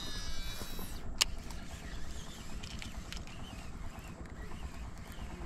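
Shimano Scorpion DC 150XG baitcasting reel whining on a cast, its digital-control brake sounding as the spool spins out, the pitch falling over the first second. A single sharp click follows about a second later, over a low rumble.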